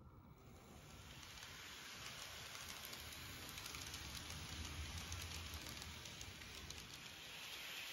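N scale model train of bi-level coaches rolling along the track: a faint rattling hiss dotted with fine clicks from the wheels. It starts about a third of a second in and slowly grows louder as the cars pass close by.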